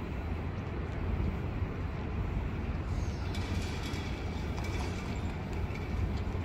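City street ambience: a steady low rumble of distant traffic, with a thin high whine or squeal joining about three seconds in.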